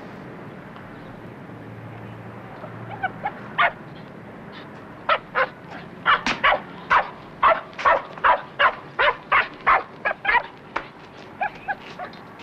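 A dog barking in a rapid run of short, high yaps, about two to three a second. A few scattered barks come first, the run builds about five seconds in and dies away near the end.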